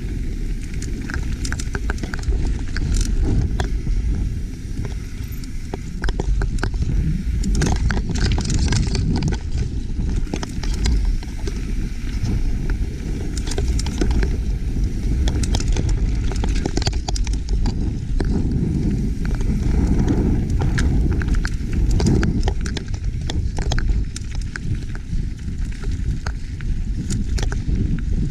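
YT Capra full-suspension mountain bike descending rocky dirt singletrack: tyres rumbling over dirt and stones, with frequent sharp clicks and knocks as the bike clatters over rocks, under a steady low rumble of wind on the microphone.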